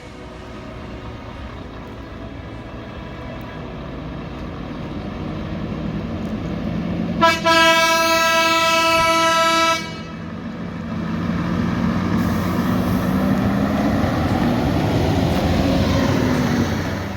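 A truck's air horn blows one steady blast of about two and a half seconds over a heavy diesel truck engine pulling away. The engine gets louder and climbs in pitch as the truck accelerates, then fades near the end.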